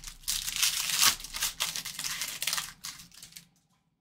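Wrapper of a Panini Select Baseball card pack being torn open and crinkled by hand: a dense crackle that is loudest about a second in and dies away about three and a half seconds in.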